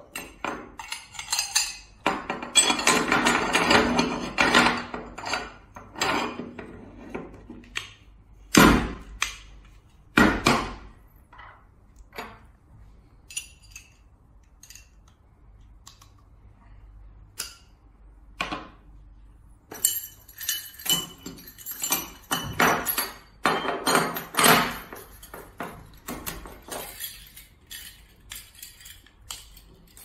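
Metal hose couplings being handled and fitted together on a table: clinks and clacks of aluminium and brass fittings knocking against each other and being set down. A dense rattle a few seconds in, two heavy knocks around the middle, a quieter spell, then more clinking.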